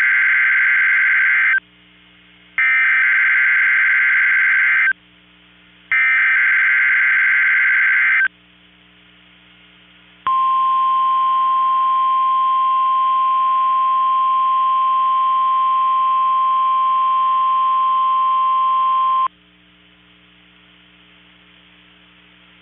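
NOAA Weather Radio EAS test signal: three bursts of SAME digital header data tones, about two seconds each and a second apart, then the weather radio warning alarm, a single steady 1050 Hz tone held for about nine seconds before it cuts off suddenly.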